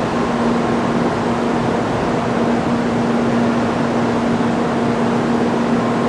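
Kyushu Shinkansen 800 series bullet train rolling slowly into the station: a steady running noise with a constant low hum.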